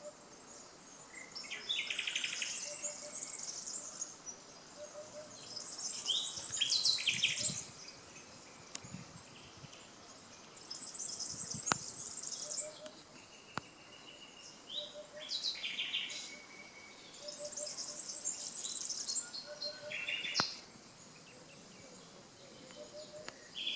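Common nightingale singing: phrases of about two seconds built from fast buzzing trills and sharp whistled notes, separated by short pauses.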